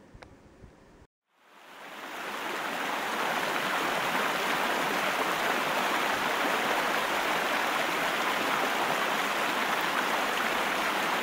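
Waterfall water rushing, a steady even roar that fades in over about two seconds after a short break in the sound about a second in.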